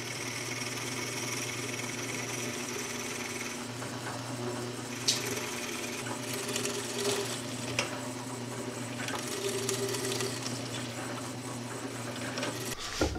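Benchtop drill press running with a steady motor hum, its bit boring into a hardwood board to hog out the waste of a mortise. Scratchy cutting noise and sharp ticks come and go from about four seconds in, and the motor stops just before the end.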